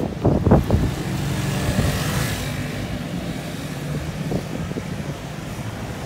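Wind buffeting the phone's microphone, with a few gusts in the first second, over the hiss of traffic on a wet road that swells about two seconds in.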